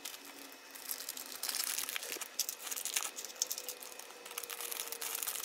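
Light crinkling and small scattered clicks of plastic nail tips and their packaging being handled.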